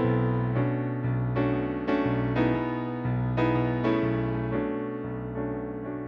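Electric piano chords played on a Yamaha stage keyboard, struck once or twice a second and left to ring and fade, over steady held bass notes.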